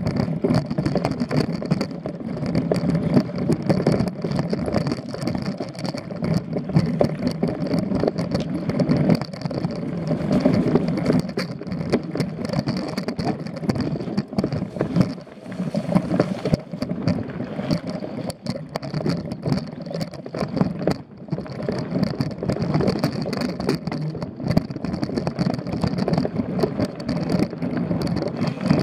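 Mountain bike riding over a dirt singletrack, heard from a camera on the bike: a continuous rumble of the tyres and rushing air, broken by constant clicks and rattles of the bike jolting over roots and bumps.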